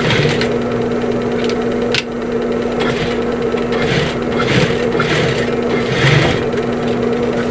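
Sewing machine running with a steady motor hum while a zipper is stitched onto a bag, with irregular scraping and rustling of the material being handled.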